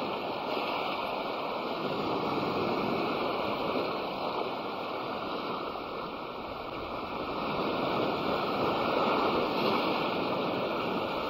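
Surf washing onto the beach in a continuous hiss, easing a little around the middle and building again toward the end.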